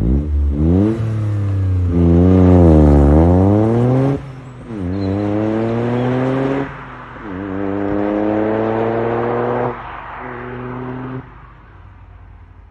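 Toyota GR Yaris's turbocharged three-cylinder, through a Milltek resonated cat-back exhaust, accelerating hard away. The pitch climbs through several gears with a short dip at each upshift, then fades as the car drives off.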